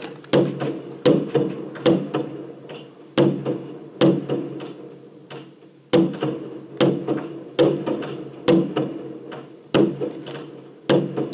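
Fireworks going off, a rapid series of bangs about two a second at uneven spacing, each followed by a short ringing decay, heard from indoors through window glass.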